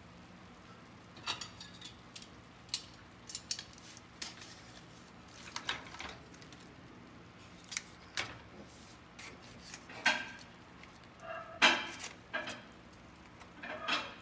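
A kitchen utensil clicking and scraping against a foil-lined baking pan, with the aluminium foil rustling, as baked ribeye steaks are lifted and moved. The sounds come as a dozen or so short, irregular clicks and scrapes, the loudest late on.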